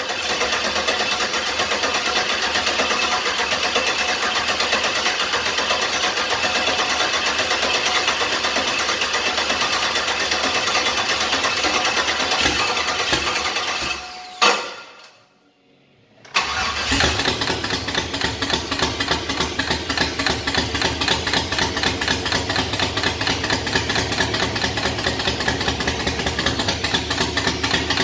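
Engine in a 1995 GMC Sonoma running on its first fire after sitting a long time. It cuts out about fourteen seconds in with a sharp knock, stays silent for about two seconds, then starts again and runs with an uneven pulsing beat, running rough.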